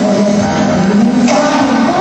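Live concert recording of a slow pop ballad: a band playing, with sustained notes and singing.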